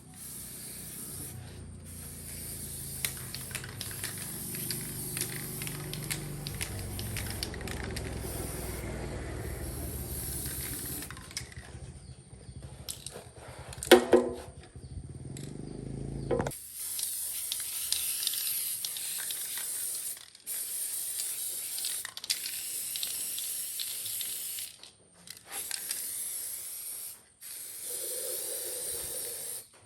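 A machine running with a steady hum and hiss, with one sharp loud clatter near the middle, stops abruptly just past halfway. It is followed by spurts of high spraying hiss broken by short pauses.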